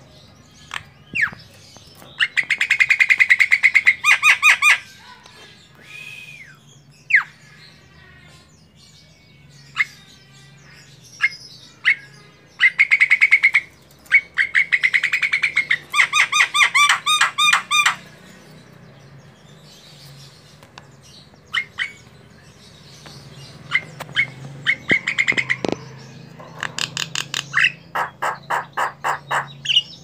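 Javan myna (jalak kebo), said to be a female, calling in several bouts of fast repeated notes, with single short sharp calls between the bouts.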